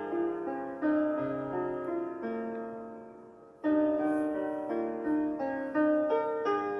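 Piano playing a slow instrumental intro of melodic notes over chords; about halfway a chord is left to die away almost to nothing before the next phrase comes in.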